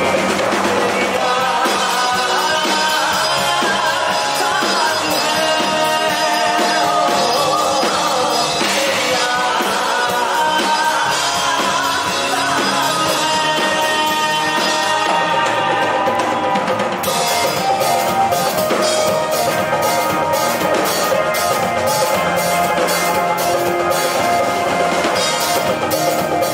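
Live band playing: electric guitars, keyboard, drum kit and hand drum, with a male voice singing. About two-thirds of the way through, the drums settle into a steady beat.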